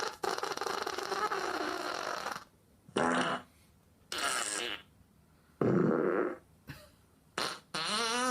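A string of fart sounds played through an Amazon Echo smart speaker. The first lasts about two seconds, then come about five shorter ones with gaps between, and a last one near the end rises in pitch.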